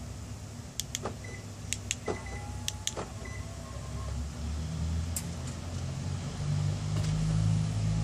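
Car remote locked, unlocked and locked again: a run of sharp clicks and door-lock clunks with a few short beeps, then the power window and sunroof motors start humming about four and a half seconds in, growing louder as the front window lowers to a vent gap and the sunroof tilts open. This is an aftermarket alarm's lock-unlock-lock command.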